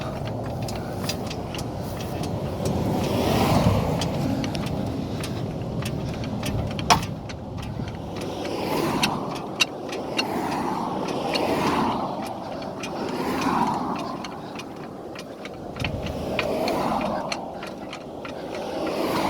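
Cars passing on a busy road, one after another, each swelling and fading over a few seconds. Scattered sharp clicks and metal knocks sound over the traffic, the loudest about seven seconds in.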